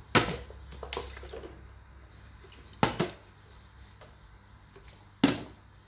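Small plastic water bottle flipped and landing on a ceramic tile floor: three sharp thuds about two and a half seconds apart, with a lighter knock about a second in.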